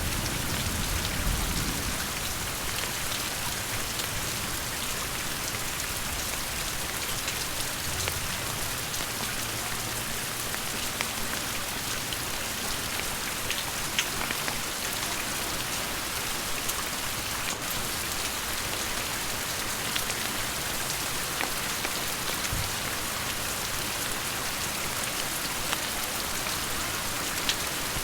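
Steady rain falling, a constant hiss with scattered sharper drop hits. A low rumble fades out in the first couple of seconds.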